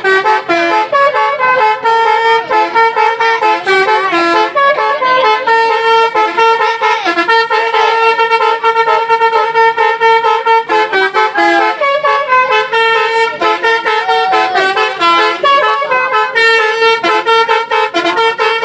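Indonesian bus telolet horn, a multi-trumpet musical air horn, playing a continuous melody of stepping notes that repeats as a tune.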